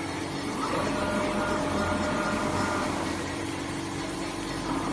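CNC flatbed cutting plotter running with a steady machine hum, and a thin motor whine from about one second to nearly three seconds in as the tool head travels across the bed.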